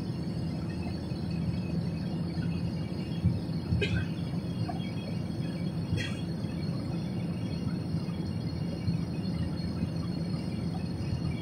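Steady airplane cabin noise shortly after takeoff: the low rush and hum of the engines and airflow heard from a window seat. Two faint brief clicks about four and six seconds in.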